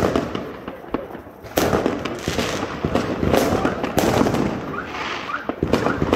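Aerial fireworks bursting overhead: a string of sharp bangs, at the start and about one and a half, three and a half and four seconds in, with crackling between them.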